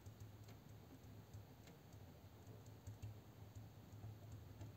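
Near silence with faint, irregular scratches and ticks of a pen writing on paper, over a low steady hum.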